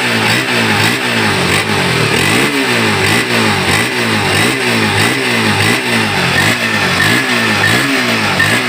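Old Honda CB150's single-cylinder DOHC 150 cc engine being revved in repeated quick throttle blips, its pitch rising and falling about every second, running on a freshly replaced spark plug after the old one had died.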